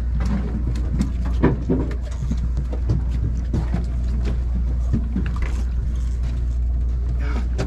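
Steady low drone of a sportfishing boat's engine running, with scattered short clicks and knocks on top.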